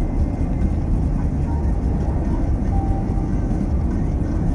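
Steady low rumble of a car driving on the highway, road and engine noise heard from inside the cabin.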